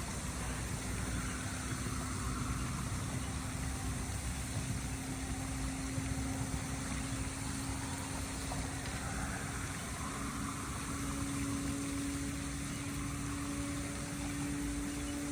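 A motor running with a steady, unchanging hum, over an even outdoor rumble.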